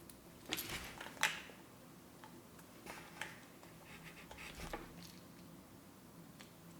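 Faint clicks and short scratches of small plug parts and wire being handled while the ground wire is fitted to the plug's green terminal. The sharpest clicks come about a second in, with more around three and four and a half seconds.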